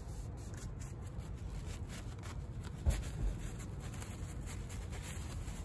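Brown paper towel rustling and rubbing as the engine oil dipstick is wiped clean, with one sharper knock about three seconds in, over a steady low background rumble.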